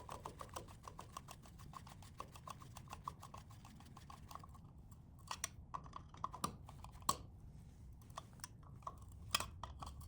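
Faint, quick run of light clicks, several a second, as a metal extension box is fastened onto a junction box. About halfway through it thins to a few scattered clicks and taps.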